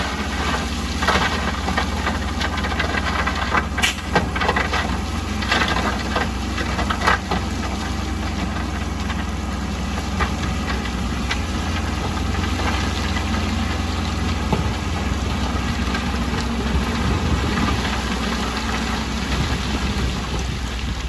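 Heavy earthmoving machine's diesel engine running steadily, with a series of sharp knocks and clanks in the first several seconds.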